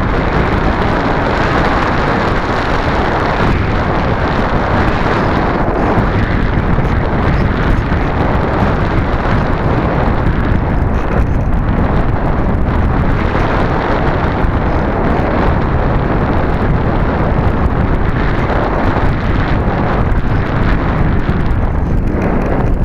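Loud, steady rush of air buffeting the microphone of a camera mounted on a PZ Radian sailplane in flight, driven by high winds at altitude.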